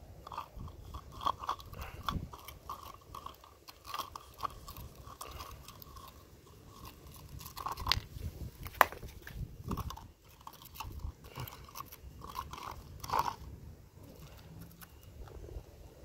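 Wooden fork scraping and knocking against lumps of concrete in a plastic cup of cement-dissolver liquid: irregular crunchy scrapes and clicks as the pieces are poked and fished out.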